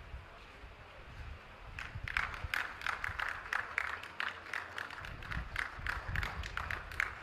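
Small audience clapping, starting about two seconds in and going on as a quick, uneven patter of claps.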